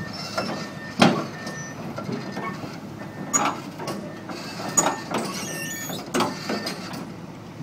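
Komatsu PC200LC hydraulic excavator's six-cylinder diesel running steadily while it is manoeuvred on a lowboy trailer, with several sharp knocks, the loudest about a second in and more at roughly one-and-a-half-second intervals.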